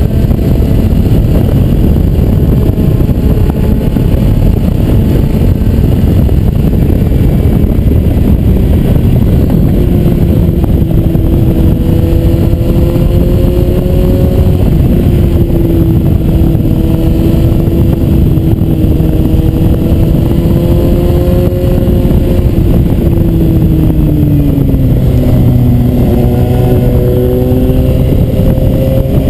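Suzuki GSR 750 inline-four engine running at road speed under a dense wind rumble on the camera microphone. The engine note holds steady, drops about three-quarters of the way through, then climbs again near the end.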